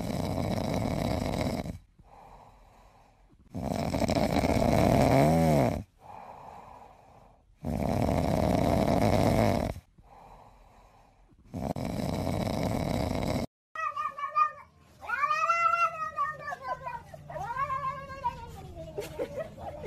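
A cat making four loud, rasping, two-second sounds with quieter gaps between them. About two-thirds of the way through, a kitten meows several times, each cry rising and falling in pitch.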